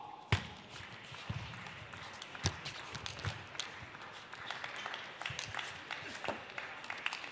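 Spectators applauding a point with scattered, uneven hand claps. It starts with a sharp knock about a third of a second in.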